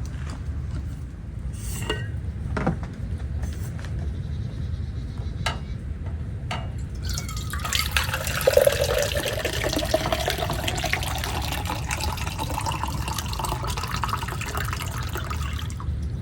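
Liquid poured into a container for about eight seconds, its pitch rising steadily as the vessel fills, then stopping abruptly. A few sharp handling clicks come before it, over a steady low rumble.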